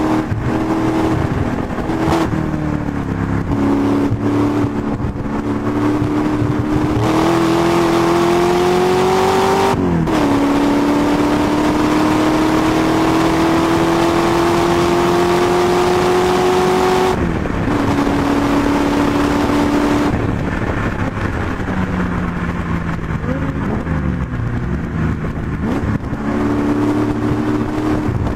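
A race-prepared MGB's 330 bhp Rover V8 heard from on board under hard acceleration: the revs climb, drop at an upshift about ten seconds in, then rise steadily for about seven seconds before the driver lifts off. For the rest of the time it runs at lower, varying revs as the car slows and goes on.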